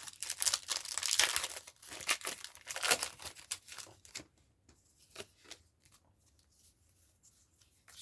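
Foil booster-pack wrapper of Pokémon trading cards being torn open and crinkled for about three seconds, followed by a few light ticks of handling.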